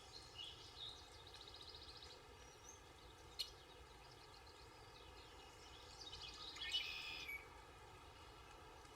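Faint songbird singing outdoors: a warbling trill near the start and a louder trilling phrase about six to seven seconds in. A single sharp click comes about three and a half seconds in.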